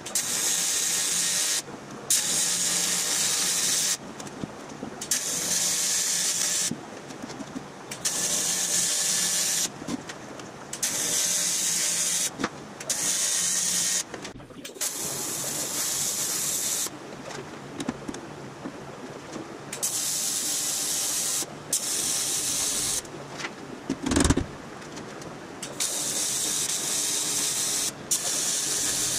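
TIG welding arc on 0.063-inch 3003 aluminum sheet: a steady hiss that starts and stops again and again, each run lasting one to three seconds, as tacks and short beads are laid along the seams. A single sharp knock about 24 seconds in.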